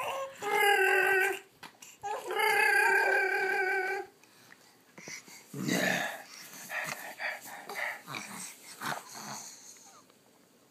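Baby vocalizing: two long, wavering, high-pitched squeals in the first four seconds, then softer short sounds.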